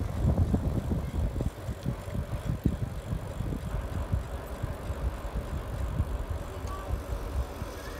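Wind buffeting the microphone in uneven low gusts, over the rumble of wheels rolling on asphalt, while riding along a paved road.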